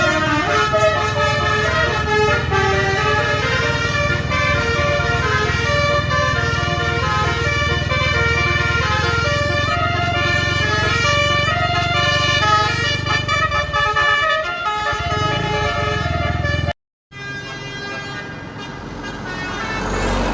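Tour bus's 'telolet basuri' multi-tone musical air horn playing a tune, its notes stepping up and down, over the low steady running of the bus's engine. The horn stops about 14 seconds in, the sound cuts out for a moment, and then engine and road noise swells toward the end.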